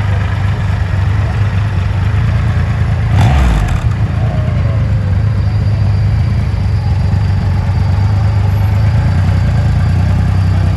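Triumph Rocket 3 GT's 2.5-litre inline three-cylinder engine idling steadily, with one quick throttle blip about three seconds in.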